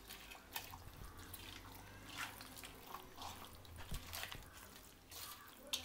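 A hand squishing raw chicken pieces through thick yogurt marinade in a stainless steel bowl: faint, irregular wet squelches and small splats.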